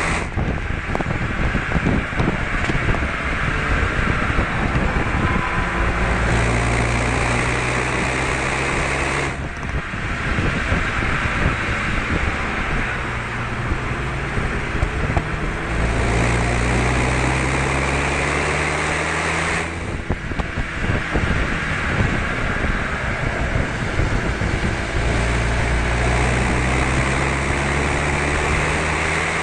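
Renault Mégane RS 250 Cup's turbocharged 2.0-litre four-cylinder engine driven hard on track. Its note climbs steadily in pitch under acceleration and falls away sharply twice, about nine and twenty seconds in.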